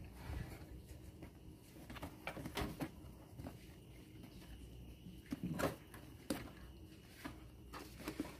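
Scattered light knocks and pats as two baby monkeys scramble and wrestle on a motorbike's seat, with a louder knock about five and a half seconds in.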